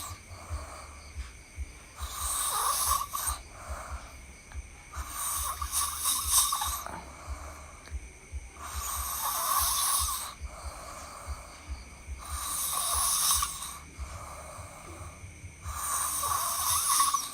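A sleeping person snoring loudly and rhythmically: five long, rasping snores about three and a half seconds apart, with quiet breaths between them.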